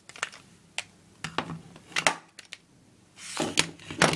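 Irregular sharp clicks and clacks of a KWA Glock 18C airsoft gas-blowback pistol being handled, with the loudest clacks about two seconds in and near the end.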